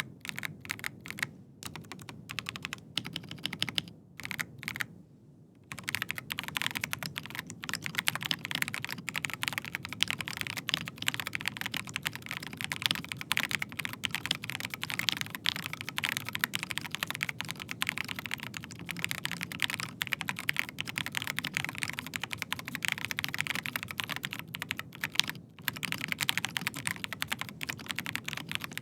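Typing on a Rapture FoxtRot mechanical keyboard with Gateron G Pro 3.0 Red linear switches. For the first five seconds or so there are separate keystrokes with short gaps, then fast continuous typing, a dense run of key presses.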